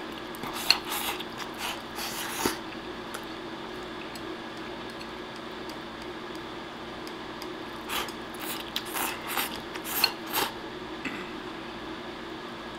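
Chopsticks stirring and scraping through a ceramic bowl of rice and egg topped with tempura bits: short bursts of scraping and rustling about a second in and again around eight to ten seconds in.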